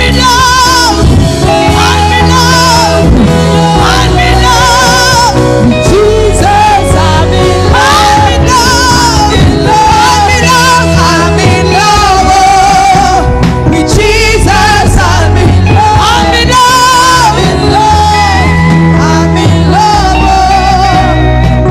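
Gospel worship music: a singer's voice with strong vibrato over sustained keyboard chords and bass, played loud.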